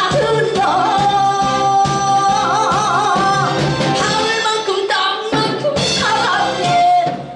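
A woman singing a Korean trot song live into a handheld microphone over a backing track, holding a long note that breaks into a wide vibrato near the middle.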